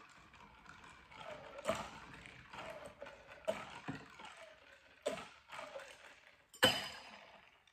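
Candle-heated wine bottle held in ice water, its glass cracking along the scored line from the sudden cold: a handful of sharp, irregular cracks over several seconds, the loudest near the end.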